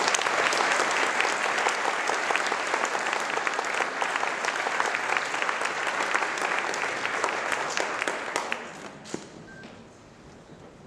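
Audience applauding, many hands clapping together, dying away about eight to nine seconds in. A single knock follows just after it fades.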